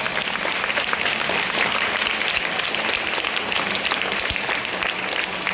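Applause: many hands clapping steadily, as a trophy is presented.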